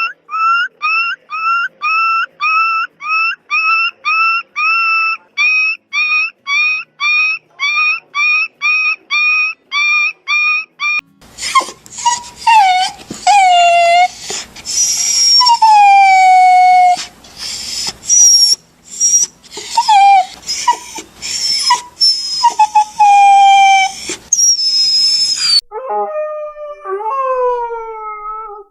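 Dogs crying: first a frightened dog whimpering in short, evenly repeated whines, about two a second; then a dog crying with high, wavering yelps and long falling whines; near the end a big dog whines at a lower pitch in falling glides.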